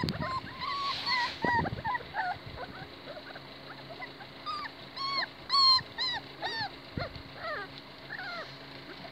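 26-day-old Kishu Inu puppies whimpering and whining: a string of short high-pitched cries, each rising and falling in pitch, the loudest and shrillest just past halfway.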